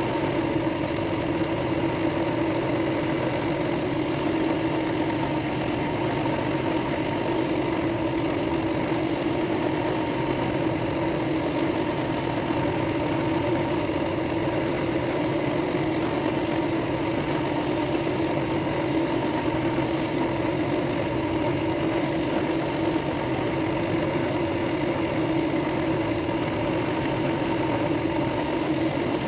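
Drill press motor running at a steady speed with a sanding drum in its chuck, sanding out the inside of a dark-wood and brass ring blank held against the drum by hand. A constant hum with a rough sanding hiss under it, unchanging throughout.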